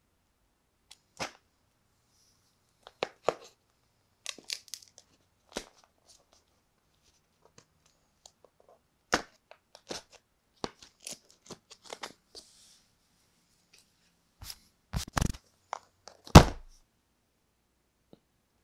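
A cardboard phone box and its seal being handled and worked open: a scatter of sharp clicks, taps and short tearing sounds, with louder knocks near the end, the loudest a heavy thunk of the box on the table.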